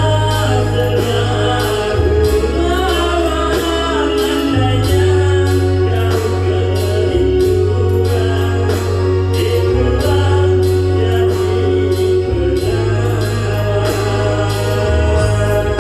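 Loud music over a large sound system: a singer over a deep bass line that changes note every couple of seconds, with a steady ticking beat.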